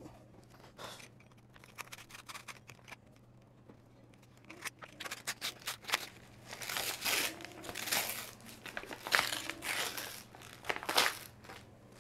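Brown paper wrapping on a book parcel being torn open and crinkled by hand: a few faint handling clicks, then from about five seconds in a busy run of rustling tears.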